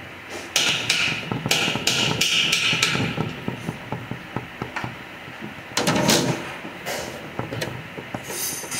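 Hand hammer striking a steel tool wedged at the aluminium case of a Nissan JF017E CVT to break the case halves apart: a run of sharp metal blows over the first three seconds. A louder knock comes about six seconds in, followed by scattered light metallic clicks.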